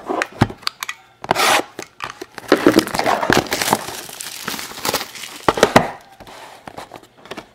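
Plastic shrink-wrap being torn off a sealed trading-card box and crumpled: several crinkling, tearing bursts, the longest in the middle, with sharp clicks between them.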